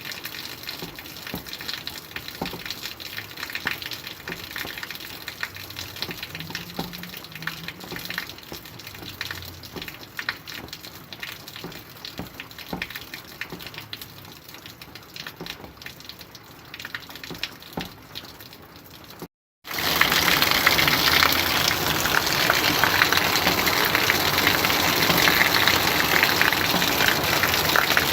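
Rain: a light patter of scattered drops, then, after a brief dropout about two-thirds through, a much louder, dense, steady downpour.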